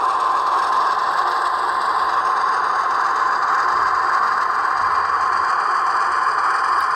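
HO-scale model coal train, a diesel locomotive hauling hopper wagons, rolling slowly along the track: a steady, even running noise of metal wheels on the rails.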